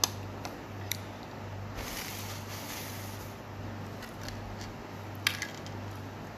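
Metal spoon clinking against a ceramic soup bowl while eating: a sharp clink at the start, a lighter one about a second in, and another pair of clinks near the end, with a brief soft rustle in between.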